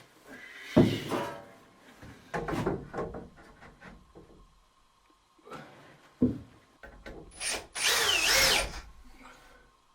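Power drill driving screws into wooden boards in several short bursts, the longest near the end with its motor pitch rising and falling, and a sharp knock on the wood partway through.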